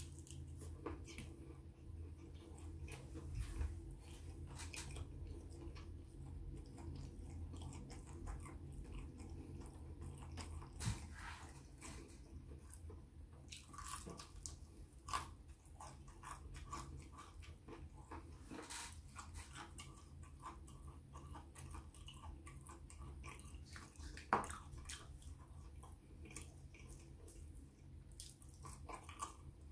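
Close-up mouth sounds of someone eating fried chicken wings and chips: chewing, biting and wet smacks, with scattered small clicks, over a faint steady low hum.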